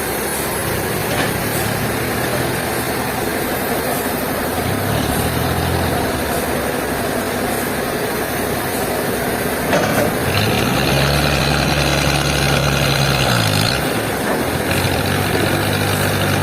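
A heavy engine running steadily, its low hum strengthening a few times, from about 10 seconds in until it drops off in pitch near 14 seconds.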